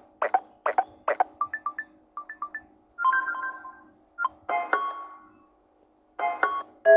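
Samsung Galaxy Tab S8's built-in notification and ringtone sounds played one after another: a series of short electronic chimes and little jingles, each a second or less, with brief gaps between them. Near the end a repeating tone starts.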